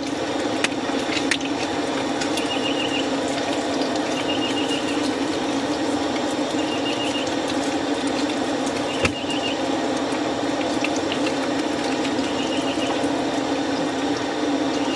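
Bacon frying in a pan, a steady sizzling hiss with fine crackles. A short high trill repeats about every two seconds over it.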